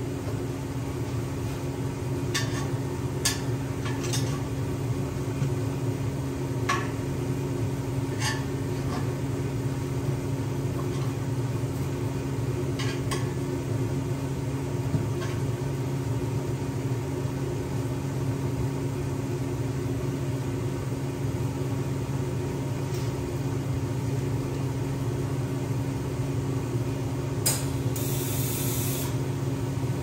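A steady low electrical hum, with scattered light clicks and taps and a brief high hiss near the end.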